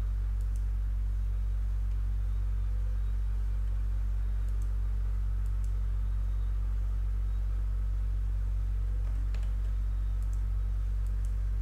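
A steady low hum, with a few faint clicks of a computer mouse scattered through it.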